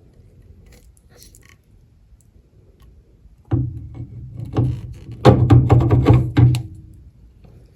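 Metal knocks and clatter with a low ringing as the pieces of a dado stack are handled and fitted onto a table saw's arbor. The noise starts about three and a half seconds in and dies away near the end.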